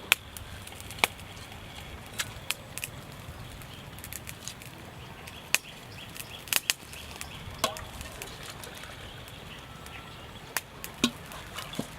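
Knife chopping on a cutting board in irregular single strokes, about a dozen sharp knocks, with the thickest cluster of quick knocks in the middle.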